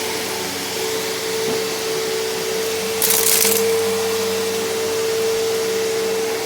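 Bissell CleanView PowerTrack Deluxe upright vacuum cleaner running, with a constant motor whine over steady rushing air. About three seconds in there is a brief, louder burst of hiss.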